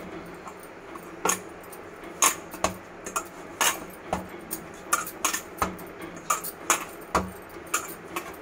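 Stiff maida dough being kneaded by hand in a stainless steel bowl: irregular knocks and slaps of dough and hands against the bowl, roughly two a second, with light metallic clinks. A steady low hum runs underneath.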